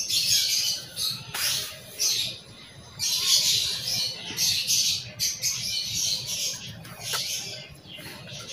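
Birds singing in repeated bursts of high-pitched chatter.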